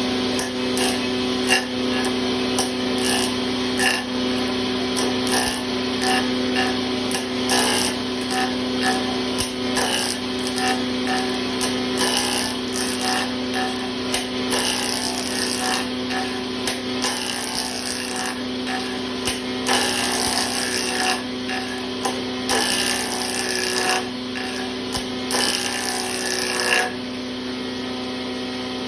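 A small electric power tool's motor running steadily, worked against wood with many short scraping strokes; the scraping stops near the end while the motor keeps running.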